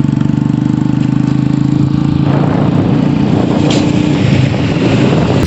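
A vehicle's engine running steadily, then pulling away about two seconds in, its even running giving way to rougher engine and road noise.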